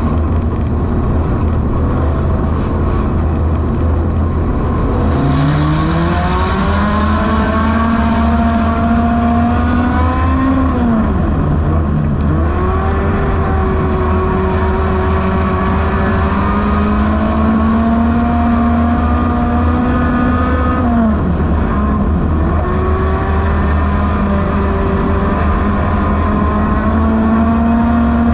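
Dirt-track race car's engine heard from inside the cockpit, over a constant heavy low rumble. About five seconds in the revs climb and hold, then fall off sharply twice, about eleven and twenty-one seconds in, as the driver lifts for the turns, climbing again each time.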